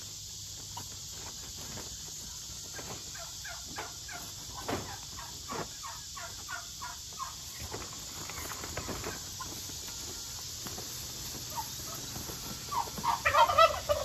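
Tarp-covered wire animal cage being lifted and tipped: scattered light clicks, knocks and rattles of the frame and tarp, over a steady insect hiss. Short bird calls come near the end.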